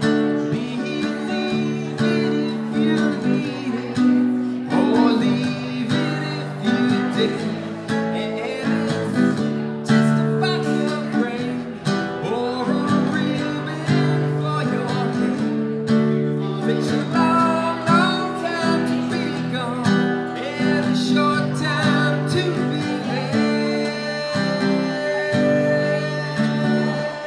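Acoustic guitar strumming chords, played live.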